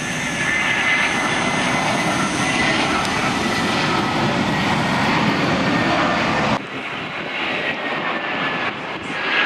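Jet engines of an Airbus A320-family airliner on final approach pass close with a loud, steady rush and thin whining tones in it. About six and a half seconds in, this cuts off abruptly to the quieter jet noise of a second, more distant airliner on approach.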